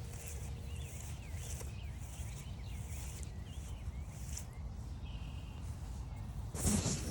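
Footsteps on a forest trail at a walking pace, over a low steady rumble, with faint bird chirps in the background. Near the end comes a louder rustling burst.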